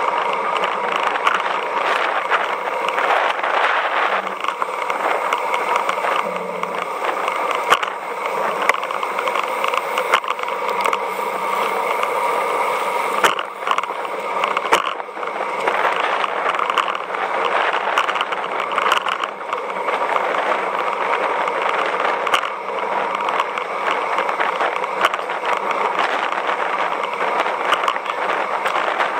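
Riding noise picked up by a camera mounted on a moving road bike: a steady rush of tyres on asphalt and passing air, with small clicks and rattles from bumps in the road. It drops briefly about halfway through.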